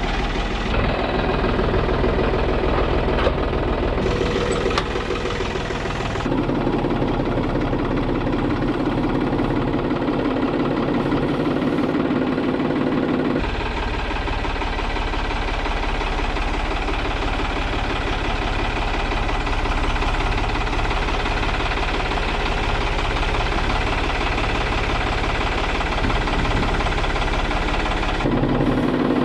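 Tractor engine running steadily, its note shifting about six seconds in and again about thirteen seconds in.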